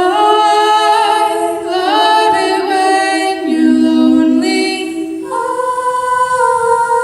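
A cappella vocal group singing close harmony with no instruments: several voices hold chords that shift every second or so, moving to a new chord a little past five seconds in.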